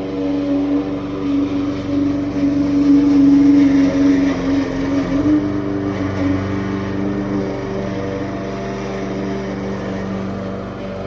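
Small gasoline engine running steadily, its pitch rising slightly and growing louder for a few seconds, then easing down to a lower, even speed about halfway through.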